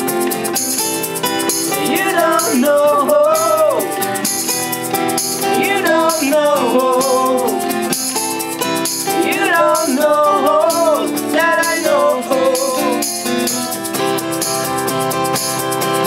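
Acoustic band music: acoustic guitar chords with a shaker keeping an even pulse, about two to three shakes a second. A lead line of sliding, wavering notes comes in four phrases over the top.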